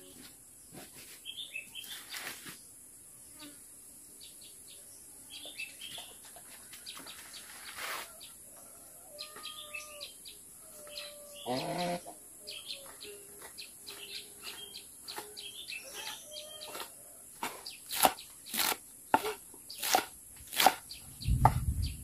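Small birds chirping in short bursts over a steady high insect hum, with one brief rising animal call about halfway through. In the last few seconds comes a quick series of sharp snaps and clicks from leafy greens being picked over by hand, with a low thump near the end.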